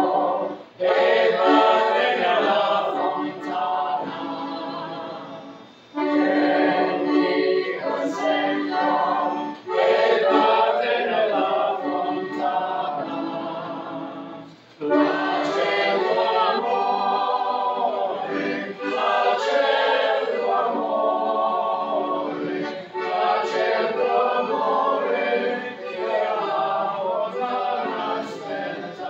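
A roomful of voices singing an Italian folk song together, with piano accordion accompaniment; the singing runs in long phrases with short breaks between verses.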